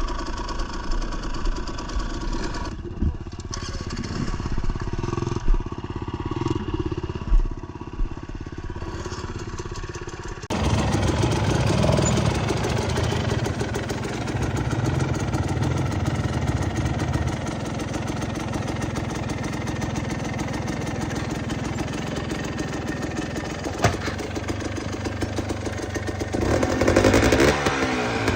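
Two-stroke dirt bike engine running on a rocky trail, with a few sharp knocks from the bike striking rocks. About ten seconds in, the sound abruptly becomes louder and fuller.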